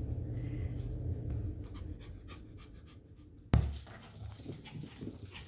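Morkie puppy panting as she plays with a plush toy, with small clicks and a sudden thump about three and a half seconds in.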